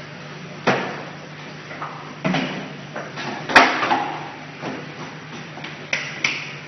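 Knocks and clacks of hand tools being handled and set down on a printing table, about five separate hits with the sharpest past the middle, over a steady low hum.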